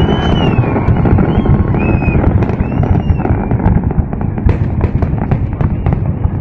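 Fireworks display: dense, continuous booming with short whistles in the first half, and rapid crackling pops taking over from about two seconds in.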